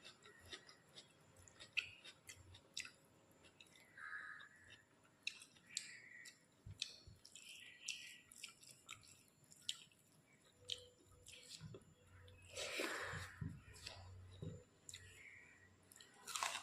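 Close-up chewing and wet mouth sounds of someone eating rice and curry, with many small clicks and smacks and a longer, louder sound about thirteen seconds in.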